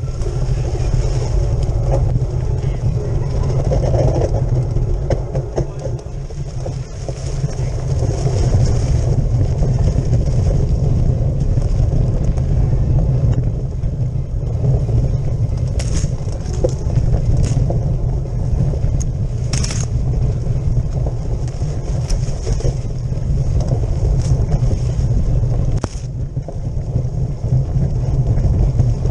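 Mountain bike riding fast over a rough dirt trail, heard from a handlebar-mounted camera: a steady, heavy rumble of wind on the microphone and tyres on the ground, with a few sharp clicks and rattles from the bike in the second half.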